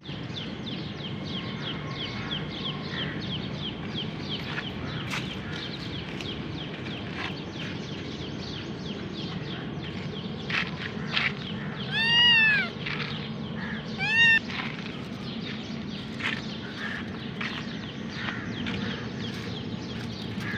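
Kitten meowing, with two loud, arching meows about twelve and fourteen seconds in and softer short calls around them, over a steady low background rumble.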